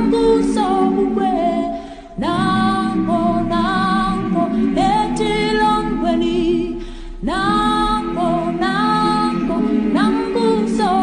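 A cappella group of voices singing in harmony, in Xhosa, with phrases that break off and start again about every two to five seconds.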